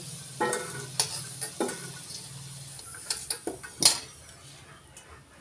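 Metal spatula scraping and clanking against a black kadai and a steel bowl as fried potatoes are lifted out of the hot oil. There are several sharp clinks, the loudest about four seconds in, over a faint sizzle of oil.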